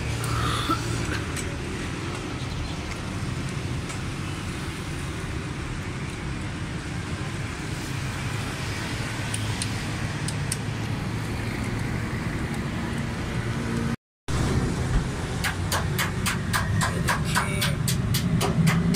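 Steady low rumble of background vehicle noise, with a few faint clicks of metal tools working on the engine's cylinder head. Near the end, a rapid, even clicking rhythm comes in.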